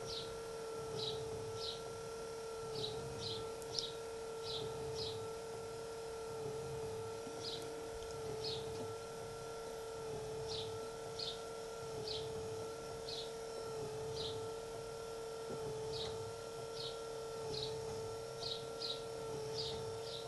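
Small birds chirping in short, high, repeated calls over a steady machine hum.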